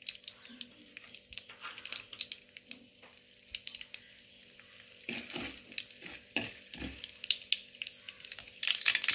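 Mustard seeds and chana dal frying in hot oil in a kadai, with the seeds crackling and popping throughout. Near the end a metal slotted spoon stirs them against the pan.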